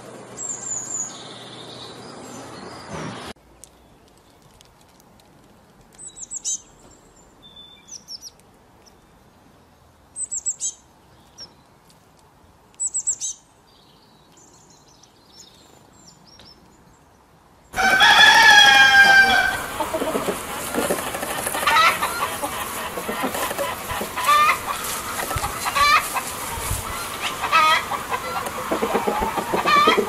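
A Eurasian blue tit's high song for the first few seconds, then a few short, sharp chirps from a Eurasian bullfinch with quiet between them. From about 18 seconds in, louder chickens take over: a long drawn-out call, then hens clucking over and over with a rooster among them.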